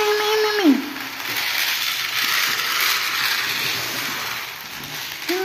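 Dry cat kibble pouring from a plastic bag and rattling onto a plastic feeding tray, then kittens crunching it. A long steady tone drops in pitch and stops under a second in, and a similar tone starts again near the end.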